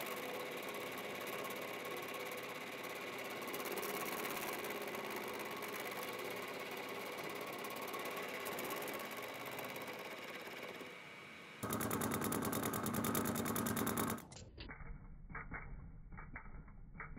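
End mill cutting a steel tool-post block: steady machining noise of the spindle and cutter chewing through the metal. About 11 s in the sound jumps suddenly louder with a low steady hum, and a few seconds later it drops abruptly to a muffled stretch of irregular clicks.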